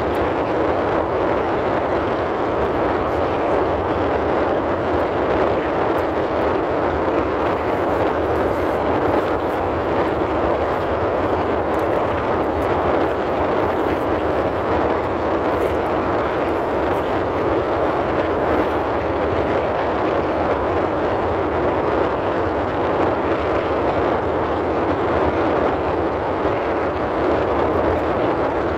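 Car's ventilation fan blowing a steady, even rush of air inside the cabin.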